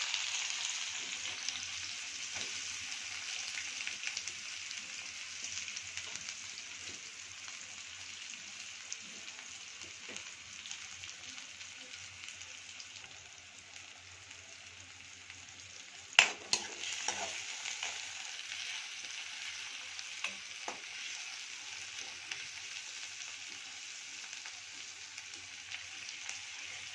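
Sliced onions sizzling in hot oil with cumin seeds in a kadhai, loudest just after they go in and easing off. A little past halfway a metal spoon knocks sharply against the pan, then a few softer knocks as the onions are stirred.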